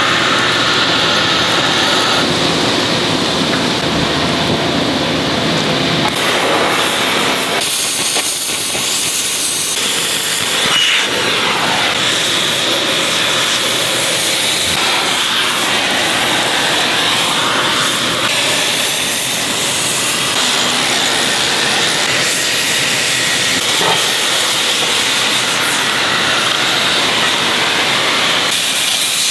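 Oxy-fuel cutting torch hissing steadily as its flame and oxygen jet cut through thick steel plate. The hiss changes in tone and strength several times.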